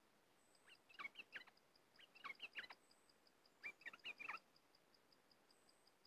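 Caged bulbul (nok prot dok taeng) singing three short bursts of quick chirping notes, roughly a second and a half apart.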